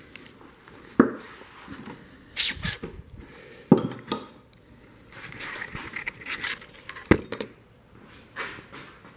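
Camera handling noise: three sharp knocks, about a second, four seconds and seven seconds in, with cloth rustling against the microphone in between as the camera is carried and set down.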